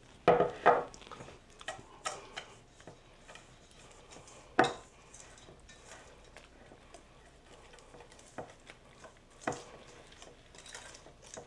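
Wire whisk stirring cake batter in a stainless steel bowl, its wires clinking and scraping against the metal in an irregular run of taps. There are a few sharper knocks, two of them just at the start.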